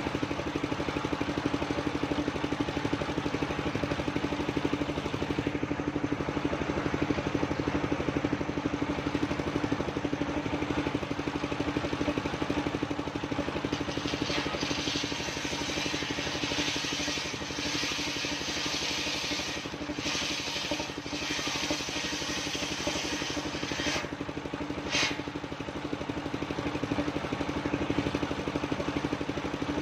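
Engine of a mobile circular sawmill running steadily. From about halfway in, for roughly ten seconds, a loud high-pitched hiss joins it as the blade cuts through old coconut-palm wood.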